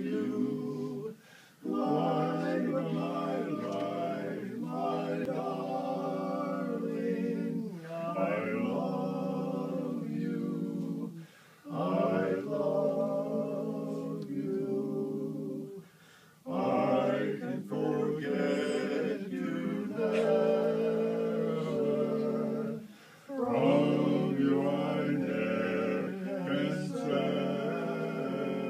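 Male vocal quartet singing a cappella, several voices in harmony, in long phrases broken by four short pauses for breath.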